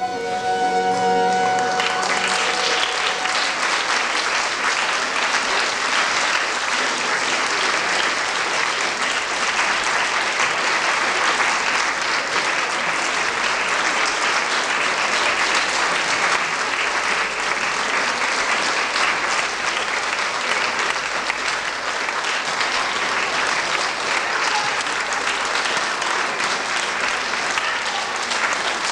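The last held notes of a small baroque ensemble die away in the first couple of seconds as an audience breaks into applause, which then goes on at a steady level.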